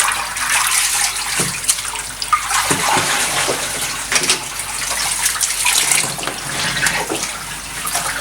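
Water sloshing and splashing irregularly in a twin tub washing machine, with wet clothes in the water.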